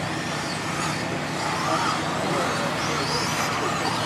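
1/10-scale radio-controlled truggies racing on a dirt track, their motors whining and rising and falling in pitch as they accelerate and slow for the turns.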